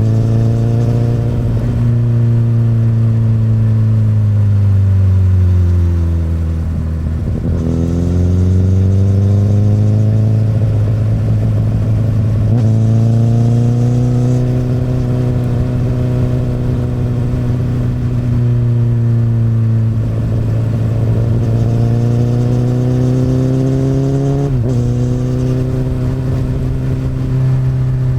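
Honda CBR1000RR's inline-four engine running on the road through an Akrapovic exhaust, its pitch drifting up and down with the throttle. There are a few sudden jumps in pitch.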